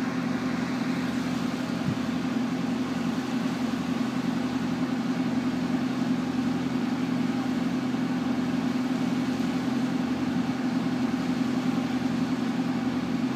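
Boat's inboard engine running steadily under way, a constant low hum that holds an even pitch and level throughout.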